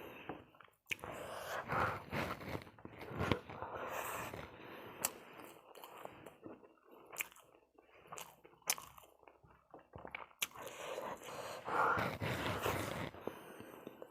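Close-up chewing and biting of crispy fried chicken wings, with irregular crunches and a few sharp clicks of bites.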